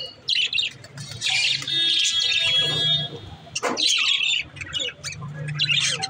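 Budgerigars chattering and squawking in quick bursts of high calls, with a longer warbling stretch between about one and three seconds in.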